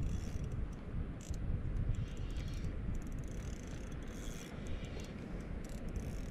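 Wind rumbling steadily on an outdoor camera microphone, with a few faint, sharp ticks.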